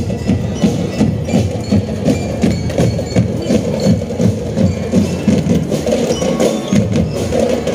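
Drum and lyre band playing: bass drums and snare drums beating a steady marching rhythm, with bell lyres ringing out a melody above them.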